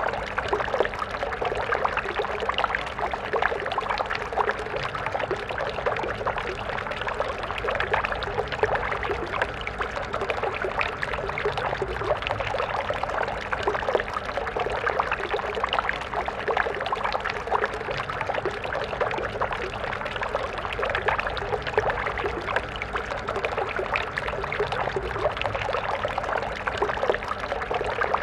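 Small stream flowing steadily over stones: a continuous babble and splash.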